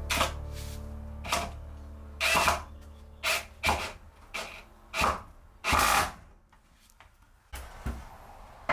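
The tail of a song fades out. Then come about ten short, sharp bursts of tool noise at irregular gaps of roughly half a second to a second, some very brief and a few lasting up to about half a second.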